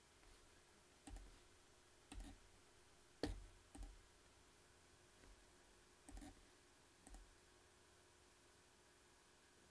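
Faint computer mouse clicks, about six in the first seven seconds, two of them about half a second apart, over near-silent room tone.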